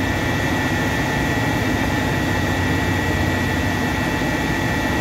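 Steady drone of industrial plant machinery: a constant low hum with a thin high whine above it, unchanging.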